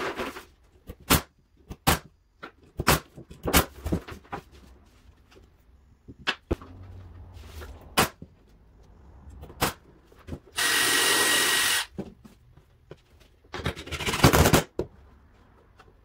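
Pneumatic brad nailer firing nails into wood: about eight sharp shots at uneven intervals. In the second half come two longer stretches of steady noise of about a second each.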